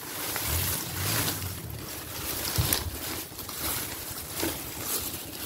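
Rustling of tall grass and a phone's microphone being handled, swelling and fading in quick waves as it is carried low through the grass.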